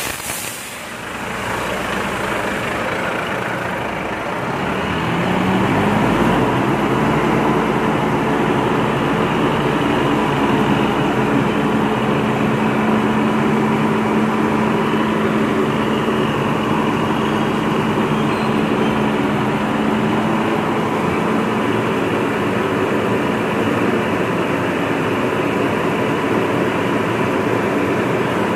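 Volvo FM refuse truck's diesel engine running while parked, rising from idle to a steady raised speed about five seconds in, holding there for some fifteen seconds, then easing back down.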